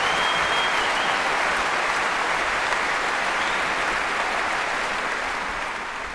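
Large concert-hall audience applauding at the end of an orchestral performance, the clapping gradually fading out. A brief high whistle sounds over it near the start.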